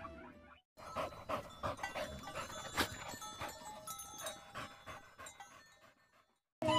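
Dog panting, a run of quick breaths several a second, stopping abruptly near the end.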